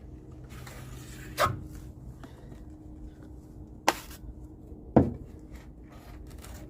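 Drywall taping knife working joint compound on a seam: faint scraping, with three sharp knocks about a second and a half in, near four seconds and, loudest, at five seconds.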